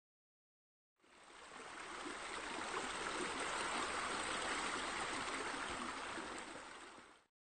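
Water running and splashing steadily, fading in about a second in and stopping just before the end.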